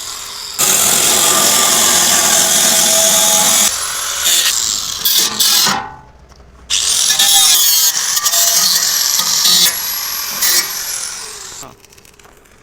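A power tool running in loud bursts with a high whine, stopping briefly about six seconds in and dying away near the end.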